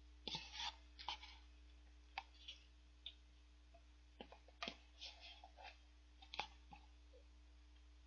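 Spoon scraping and tapping against the inside of a paper cup of shaved ice, scooping out the last bits: a scattered string of faint, sharp clicks and short scrapes.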